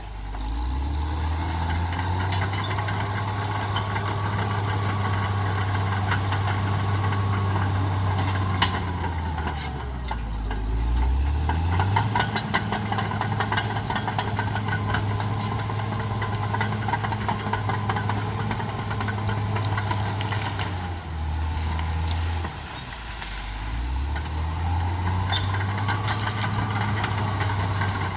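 Caterpillar D6R XL bulldozer's diesel engine running hard under load. Its note drops and picks up again twice, about a third and about four-fifths of the way in. A few sharp cracks come just before the first drop.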